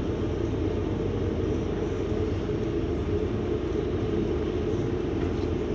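Steady low rumble of a double-decker bus running and its road noise, heard from inside on the upper deck.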